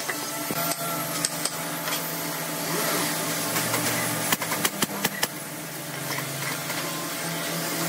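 Cordless nail gun firing nails through curved wooden segments into a wooden cable-reel disc: a few single sharp shots early on, then a quick run of about five shots around the middle, over a steady hum.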